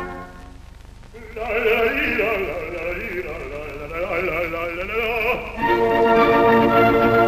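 Orchestral ballet score: the orchestra breaks off and, after a short hush, a solo operatic voice sings a phrase with wide vibrato. About five and a half seconds in, the full orchestra comes back in with a held chord.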